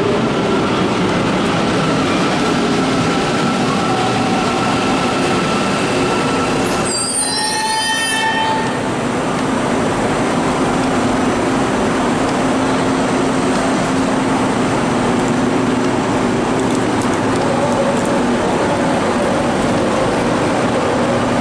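Metro train running in the station: a steady loud rumble and hiss with a low hum. A brief warbling high-pitched sound comes about seven seconds in.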